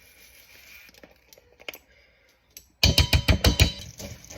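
A few faint kitchen clicks, then about three seconds in, loud drum-heavy music cuts in with a fast, thumping beat.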